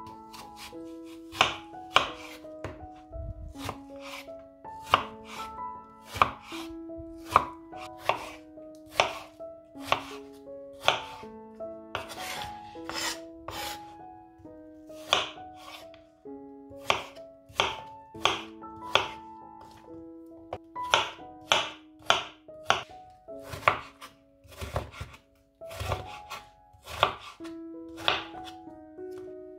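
Kitchen knife cutting an apple into cubes on a bamboo cutting board: irregular sharp knocks of the blade striking the board, roughly one or two a second. Soft background music with a slow melody plays underneath.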